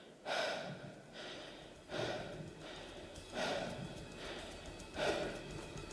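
Four heavy, breathy exhales, about one and a half seconds apart, over faint background music.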